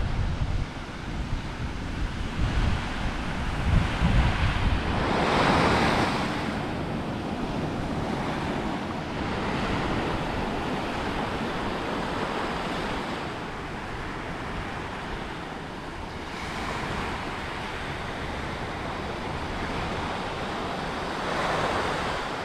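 Small surf washing onto a sandy beach, with a louder wave breaking about five seconds in and another near the end, and wind buffeting the microphone.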